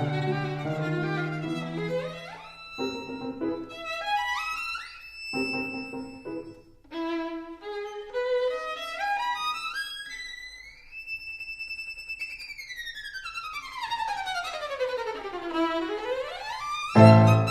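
Background music led by a violin, playing quick upward runs and held high notes, then a long slide down in pitch and back up, with fuller low notes coming in near the end.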